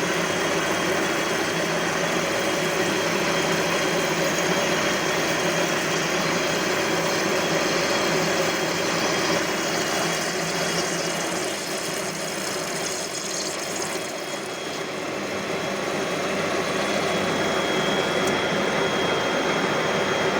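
CNC lathe running as it machines a steel flange: a steady machine noise with several held tones, easing off a little just past the middle before coming back up.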